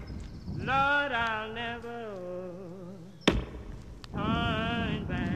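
A domestic cat yowling: two long, drawn-out, wavering calls, the first sliding down in pitch at its end. A single sharp knock falls between them.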